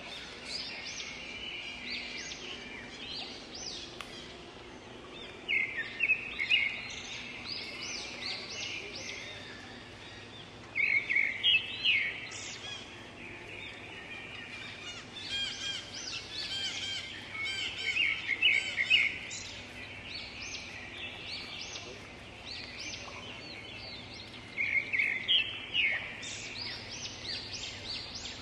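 Birds chirping in quick runs of high notes, coming in bursts every few seconds, over a faint steady low hum.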